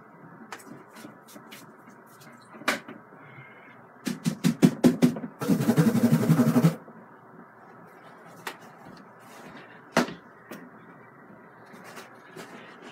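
A paintbrush being knocked against the wooden easel to shake it out: a quick run of knocks about four seconds in, running straight into a rapid rattling beat for about a second and a half. Single sharp knocks and light clicks of brushes and tools come before and after.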